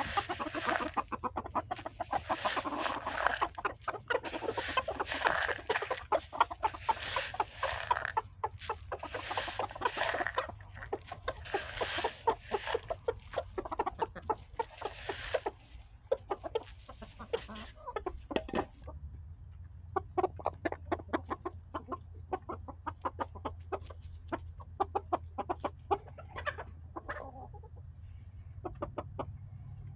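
A flock of silkie chickens clucking as they crowd around scattered feed, busy and continuous at first, then thinning after about halfway into scattered short, sharp sounds.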